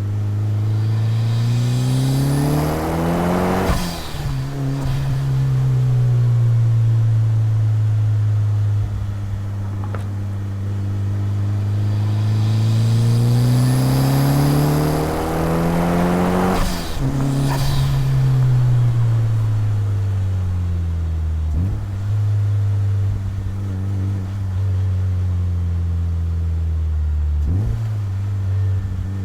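Turbocharged 4G63 four-cylinder of a 1999 Mitsubishi Lancer Evolution VI pulling hard twice, its note climbing with the revs. Each pull ends suddenly at a lift-off or shift with a short hiss of blow-off valve venting, then the revs fall away and settle.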